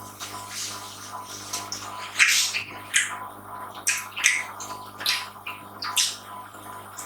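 Close-miked eating sounds: wet chewing and mouth smacks in short, irregular bursts, the loudest about two, three, four, five and six seconds in.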